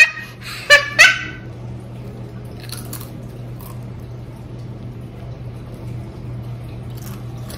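A young child's two short, high-pitched laughs about a second in, then faint crunching as the child chews a potato chip.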